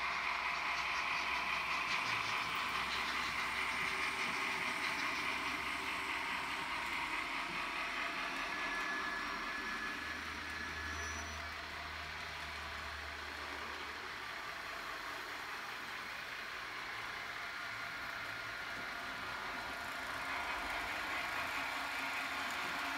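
Sound decoder in a HAG H0-scale model of the Swiss Bm 4/4 II diesel locomotive, playing its diesel engine running sound through the model's small speaker, mixed with the model running on the track. The sound is steady, eases off for a while midway and grows louder again near the end.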